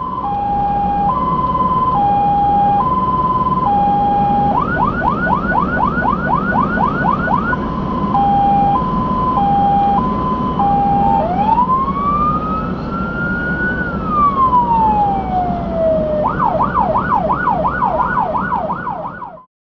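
Fire engine's electronic siren cycling through its modes: an alternating two-tone hi-lo, then a fast yelp of about four sweeps a second, hi-lo again, one slow wail rising and falling, and fast yelp again. The truck's engine and road noise run underneath.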